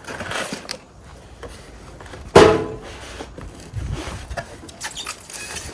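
Cardboard box being opened and its contents handled: scattered rustling and scraping, with one loud knock about two and a half seconds in.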